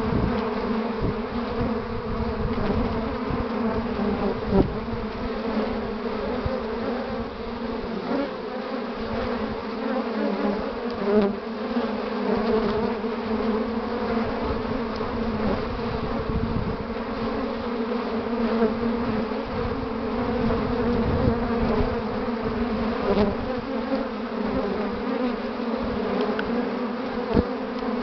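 Honeybees buzzing at the hive entrance in a steady drone, a busy colony bringing in willow pollen, with a few brief knocks.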